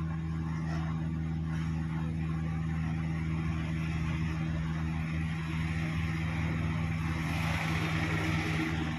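Steady low electrical hum from running workshop equipment, constant in pitch and level, with a faint hiss that swells about six seconds in and fades near the end.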